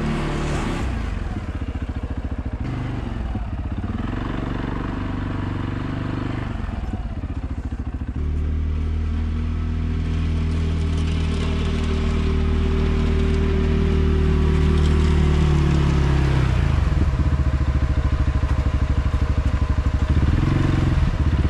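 ATV engine running under load while plowing snow, its pitch changing as the throttle goes up and down: it climbs about eight seconds in, holds, drops off around sixteen seconds and picks up again near the end.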